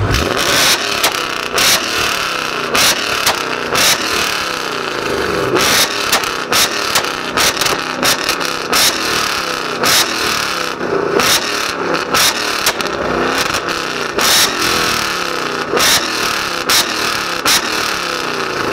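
Ford Mustang revved hard against a two-step launch-control limiter, firing a long series of loud, irregular exhaust pops and bangs out of the Borla exhaust while the revs rise and fall between them.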